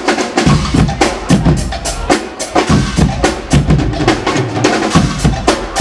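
Guggenmusik carnival band playing: drums and cymbals beat a fast, steady rhythm under brass and sousaphones.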